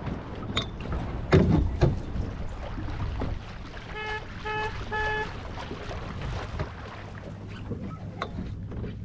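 Steady wash of water and wind around a small sailboat, with a few sharp knocks a little over a second in. About four seconds in come three short beeps in quick succession.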